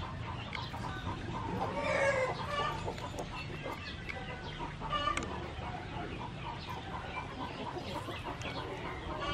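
Chickens clucking in short, repeated calls, with louder bursts about two seconds in and again about five seconds in.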